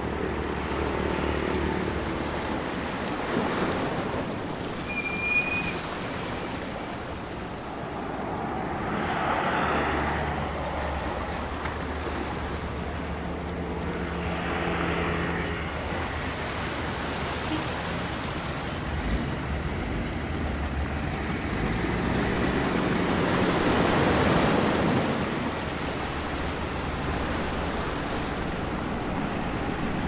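Small sea waves washing over shoreline rocks, the wash swelling and easing every several seconds and loudest about two-thirds through, over a steady low hum of street traffic.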